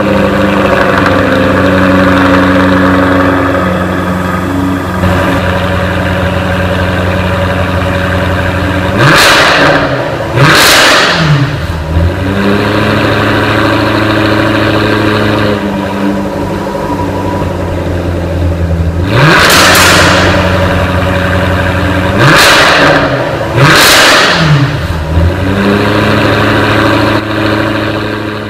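2015 Jaguar F-Type R Coupe's supercharged 5.0-litre V8 idling through its quad exhaust, revved sharply twice about nine seconds in and three more times in the second half, each rev falling straight back to idle.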